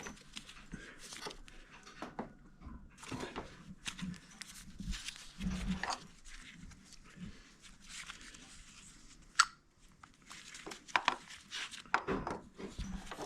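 Irregular scrapes, rustles and metal clicks of hand work pushing brake caliper pins in with a bench vise, with one sharp click about nine and a half seconds in.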